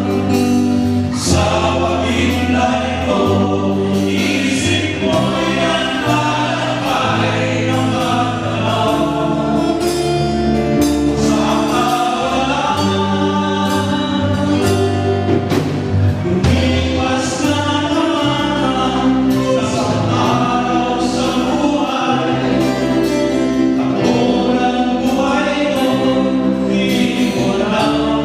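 A group of voices sings a gospel song together, backed by a live band of guitars, bass and drums played through a PA system.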